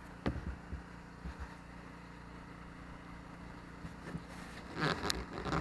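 Hands working at an RV clearance-light lens that will not come off: a sharp click and a few low knocks at the start, then a brief scraping rustle with another click near the end, over a steady low hum.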